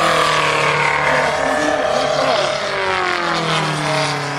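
Engine of a large-scale radio-controlled Gee Bee R-3 model plane in flight, its note sliding down in pitch as it passes, then again about two seconds in on the next pass.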